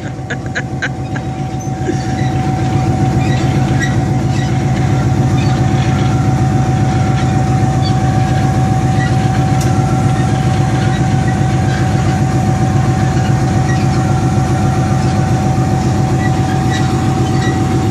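Pakistan Railways RGE-20 diesel-electric locomotive's engine running steadily at idle, a deep even hum with a steady high whine over it. There are a few light clicks in the first second.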